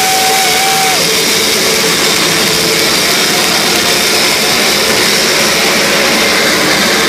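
Live shoegaze band's extended noise section: a loud, unbroken wall of distorted electric guitar noise and feedback, with a high feedback tone held through about the first second.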